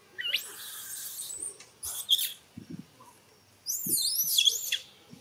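Young long-tailed macaque screaming in high-pitched squeals that rise and fall in arcs: a burst in the first two seconds, a short one about two seconds in, and the loudest run of squeals about a second before the end.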